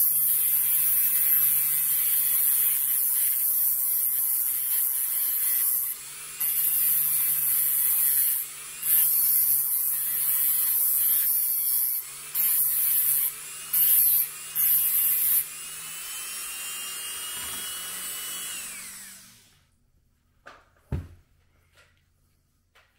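Rotary tool's cutting disc grinding a flangeway into a model railroad rail: a loud, hissing grind over a steady motor hum, broken off several times as the disc is lifted from the rail in short passes. About three-quarters of the way through the grinding stops, the tool runs free for a moment and winds down, and a single click follows.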